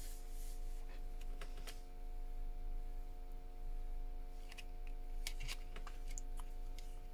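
Scattered light clicks and taps of small phone parts and tools being handled, about eight in all, some in quick pairs, over a steady electrical hum.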